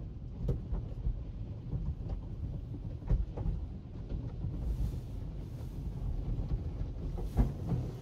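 Automatic car wash heard from inside the car's cabin: a steady low rumble of the wash with water spray and brushes working over the body, scattered knocks, and brief hissing surges about halfway through and near the end.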